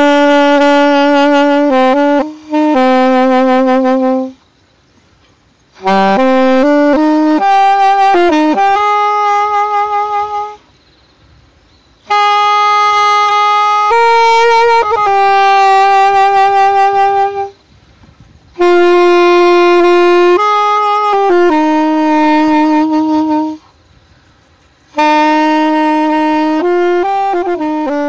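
Solo saxophone playing a slow melody in phrases of long held notes, several ending with vibrato, with short pauses for breath between phrases.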